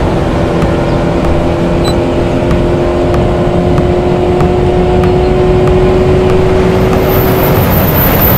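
Sound effect of a car at high speed: a steady engine drone over loud rushing wind. A high, thin whine comes in near the end.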